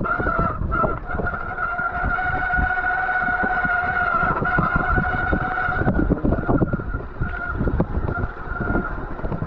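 Mountain bike rear disc brake squealing steadily as metal rubs on metal, over the rattle and knocks of the bike rolling on a rough, muddy trail; the squeal fades somewhat after about six seconds. The sound is the sign of brake pads worn down to their metal backing plates.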